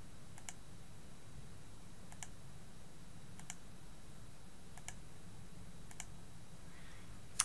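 Computer mouse left-button clicks, about five single clicks spaced roughly a second apart, over a faint steady low hum.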